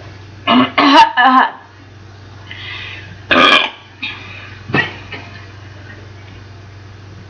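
Loud human burps: a quick run of three belches about half a second in, another loud belch about three and a half seconds in, and a short one near five seconds.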